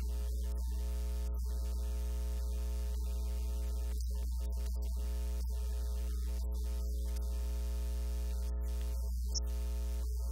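Steady electrical mains hum, a low buzz with a stack of even overtones, holding one pitch and level throughout.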